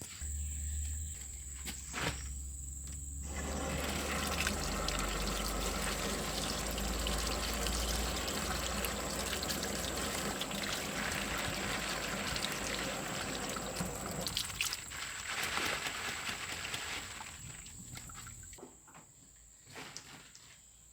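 Water running or pouring steadily for over ten seconds, then tapering off, with a few clicks and knocks before and after.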